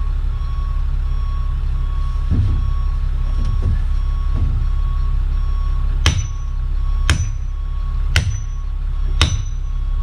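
Four sharp axe strikes about a second apart at the base of an oak during felling, each with a short metallic ring, over a steady low engine hum.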